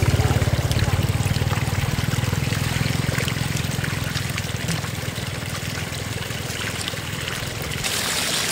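Water running and trickling, over a low rumble that fades about halfway through.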